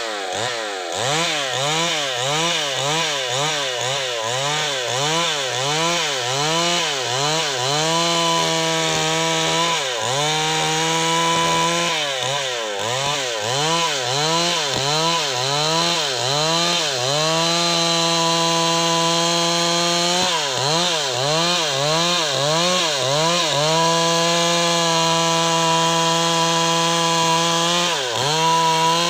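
Stihl MS382 two-stroke chainsaw ripping a gmelina (white teak) log lengthwise under load. The engine pitch dips and recovers about one and a half times a second as the chain bites, with stretches held at a steady high pitch about a third of the way in, near the middle and again near the end.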